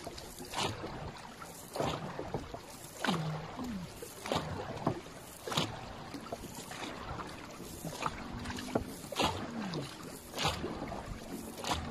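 Crew of a Thai longboat paddling in unison: their wooden paddles strike and pull through the river water together, one stroke about every 1.2 seconds, over a steady rush of water along the hull.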